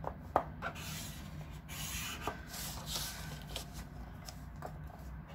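Scoring tool drawn along the grooves of a scoring board, creasing cardstock: several short scraping, rubbing strokes, with a few light clicks in the first second.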